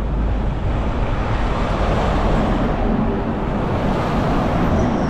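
Strong wind buffeting the microphone during a bike ride, a steady rough rumble with no break.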